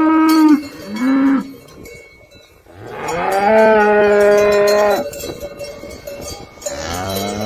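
Cows mooing: a short moo about a second in, a long moo from about three to five seconds, and another moo rising in pitch near the end.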